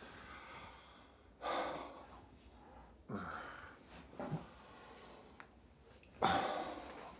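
A man's heavy breaths and sighs on waking: four separate breaths, the loudest a long yawning exhale near the end as he stretches.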